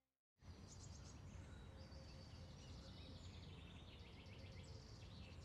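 Quiet outdoor ambience of many small birds chirping over a steady low hum of distant town noise, cutting in just after a brief moment of silence.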